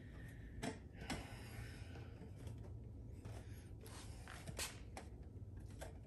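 A few light clicks and knocks from hands and a hand tool working flexible heater ducting inside a metal compartment, over a steady low hum.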